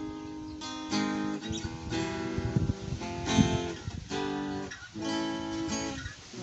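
Acoustic guitar strung with Fender electric-guitar strings, strummed in chords about once a second, each chord left to ring.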